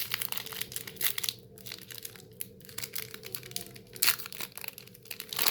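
Foil booster pack of trading cards being torn open and crinkled by hand, in a run of irregular crackling rustles with a few louder crinkles.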